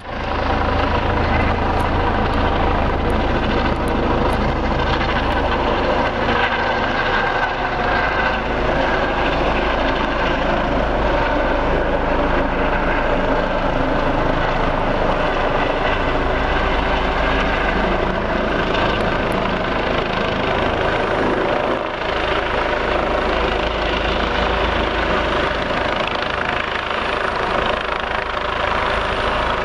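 ADAC rescue helicopter approaching to land: its rotor and turbine give a steady, loud running noise.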